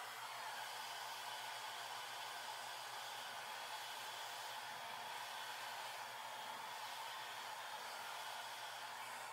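A 2400-watt Liz Extreme hand-held hair dryer running steadily, a constant rushing hiss of air with a faint hum, blowing onto wet hair as it is brushed out with a round brush.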